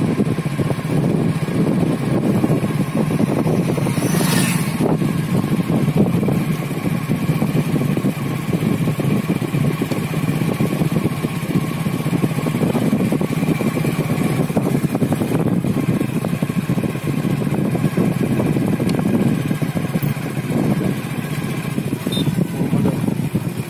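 Motorcycle engine running steadily at low speed, with a brief hiss about four seconds in.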